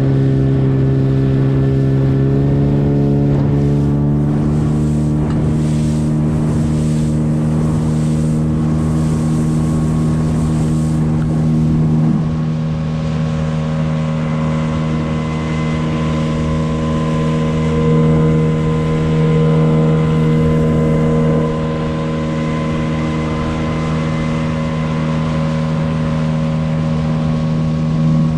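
Gladiator 9.9 hp outboard motor speeding up, its pitch rising over the first few seconds, then running steadily under way, with a rush of water and wind around it.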